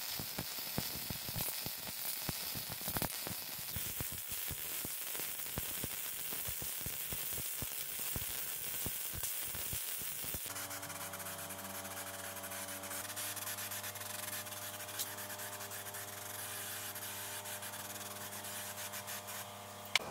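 Wire-feed (MIG) welding arc crackling and sizzling as a bead is laid along a steel tube where it meets a steel plate. About halfway through, steady sustained tones come in under the hiss and shift once a few seconds later.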